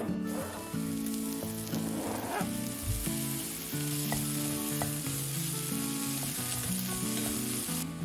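Food sizzling as it fries in a hot pan, a steady crackling hiss that stops abruptly near the end.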